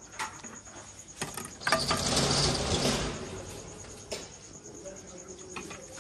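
Kitchen clatter of ladles and pots: a few clicks and knocks, with a louder splashing rush for about a second and a half near the middle as broth is ladled and poured.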